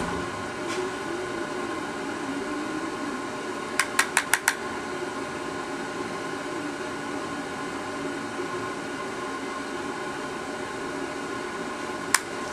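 A household machine running with a steady hum made of several held tones. Four quick clicks come about four seconds in, and a single click near the end.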